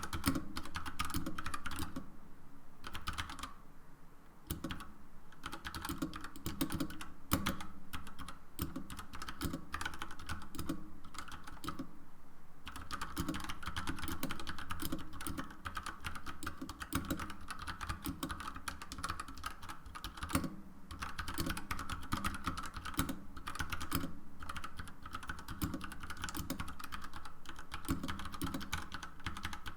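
Fast, continuous typing on a mechanical keyboard with Gateron Brown tactile switches and SA-profile keycaps: a dense stream of key clacks.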